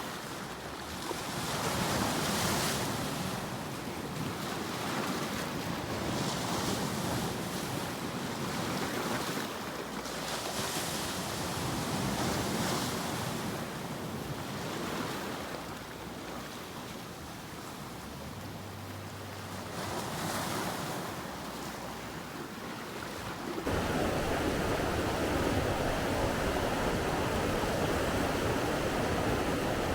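Ocean waves breaking and washing up, the surf swelling and falling every few seconds, with wind buffeting the microphone. About 24 seconds in, the sound changes abruptly to a steadier, louder rush.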